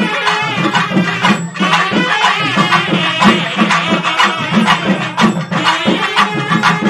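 Indian folk-style music with a steady drum beat under a wavering melody line.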